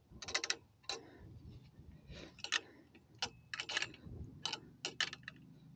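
Irregular light clicks and taps from the weather station's mounting clamp and sensor arm being handled and turned by hand on a metal conduit mast.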